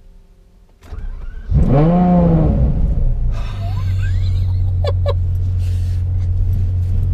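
Ferrari F12 TDF's 6.3-litre V12 cranking on the starter and catching about a second and a half in, flaring up in a rev and dropping back, then settling to a steady idle.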